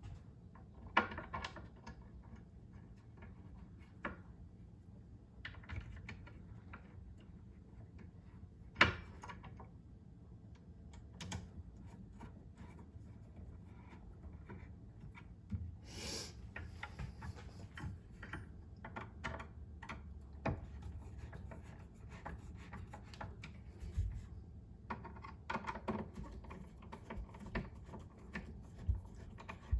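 Scattered light clicks, taps and rubbing of small cabinet hardware and hand tools being handled against wooden cabinet doors, with sharper knocks about a second in and near nine seconds in.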